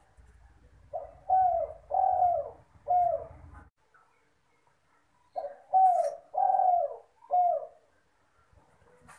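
Spotted dove (derkuku) cooing: two phrases of four low coos each, a couple of seconds apart. A faint low hum runs under the first phrase, and a short click sounds about six seconds in.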